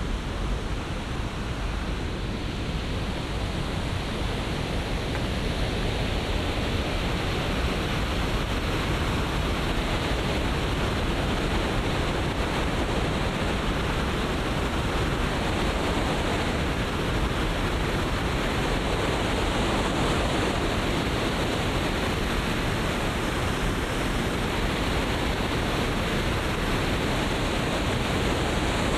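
Steady, even rushing noise, like fast-flowing water, growing slightly louder over the first few seconds and then holding.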